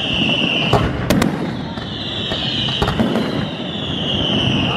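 Daytime fireworks display: a handful of sharp bangs, two of them close together about a second in, over a high whistle that glides downward again and again.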